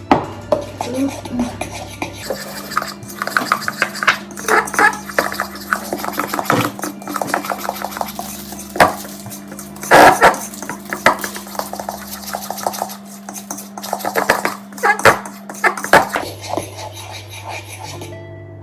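A utensil clinking and scraping against a mixing bowl in a rapid, uneven run of short knocks as flour is stirred into banana bread batter, over background music.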